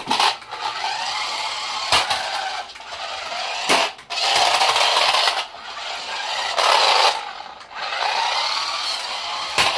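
Toy remote-control car's small electric motor and gears whirring in surges as it is driven back and forth, with a few sharp clicks or knocks in between.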